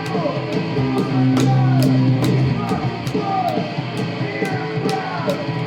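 Punk/crossover rock recording playing: a fast steady drum beat with cymbal hits, guitar and sung vocals.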